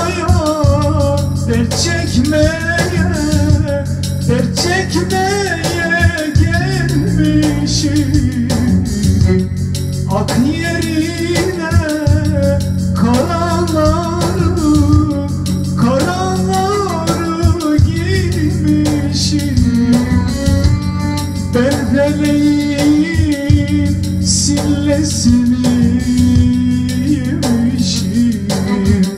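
A man sings a wavering, ornamented melody into a microphone over an arranger keyboard accompaniment, with sustained organ-like chords and bass underneath.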